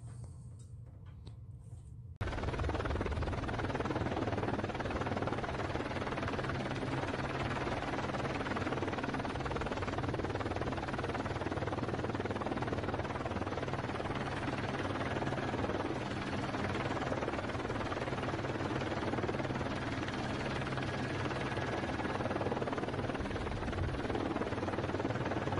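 Steady rushing roar of storm wind and rough sea, heavy in the low end like wind buffeting a microphone. It cuts in abruptly about two seconds in, after a fading drum-roll of music.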